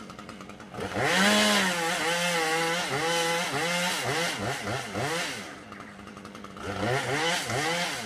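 Chainsaw revving up and down in quick repeated surges as it cuts at the top of a tall tree. It eases off about two-thirds of the way through, then revs again near the end.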